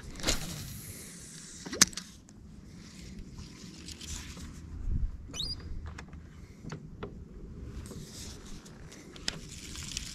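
Spinning rod and reel being handled while fishing: scattered sharp clicks, the strongest about two seconds in, and soft rustling, with a short rising chirp a little past the middle.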